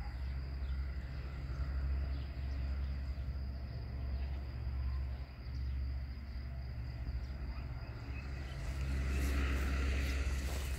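Outdoor garden ambience: a low, uneven rumble with a faint high steady note above it. About eight and a half seconds in, a brighter hiss and rustle comes in.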